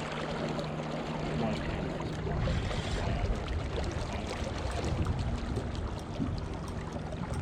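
Water and wind noise around a small boat, with a low steady hum that fades out about two and a half seconds in.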